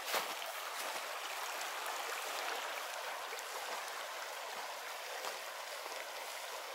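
Shallow mountain creek running over rocks: a steady rush of water. A single brief knock comes right near the start.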